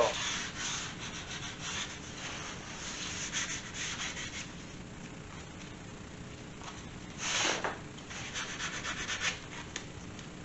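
Sandpaper rubbed by hand along the edge of an MDF panel in short, repeated strokes, taking the fuzz off the freshly cut edge. There is one louder stroke about seven seconds in, followed by a quick run of strokes.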